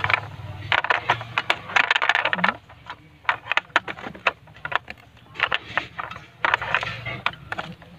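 Metal tools and parts clinking and rattling, with many sharp clicks in quick clusters.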